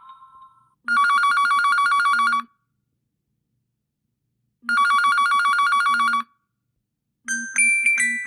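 Huawei P40 Pro phone ringtone in the style of a classic telephone ring: two rings of about a second and a half each, made of two high tones trilling rapidly back and forth, separated by a few seconds of silence. A different chiming melody starts near the end.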